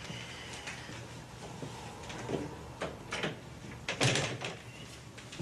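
A few separate knocks and clunks of things being handled, the loudest about four seconds in, over a low steady hum.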